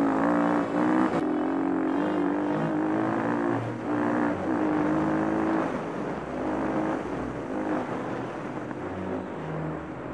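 Kawasaki KLX250S single-cylinder four-stroke engine running under way on a dirt trail, its pitch stepping up and down with throttle and gear changes.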